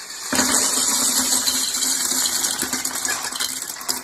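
Loose plastic Lego bricks clattering against each other in a dense, continuous rattle that starts about a third of a second in.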